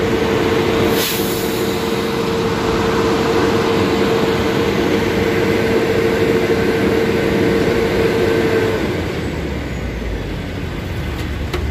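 Concrete mixer truck running hard while its drum spins to mix the load until it is homogeneous before discharge. A steady whine runs over the engine noise and stops about nine seconds in, leaving a lower rumble. There is a short hiss about a second in.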